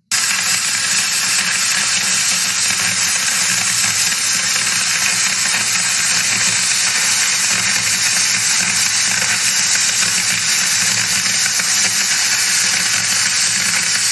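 Electric welding arc burning: a loud, steady crackling hiss that starts abruptly and holds even.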